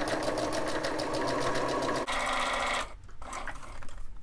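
Electric home sewing machine stitching through two layers of felt, running steadily with a fast, even stitch rhythm for nearly three seconds, then stopping. A few light clicks follow as the felt is turned under the presser foot.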